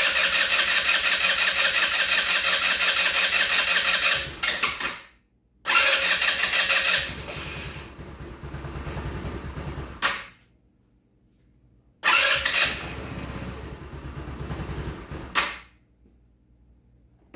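Chinese GY6 scooter engine being started three times with its electric starter. Each time it turns on for a few seconds and then shuts off immediately, which the owner suspects may be air in the fuel lines.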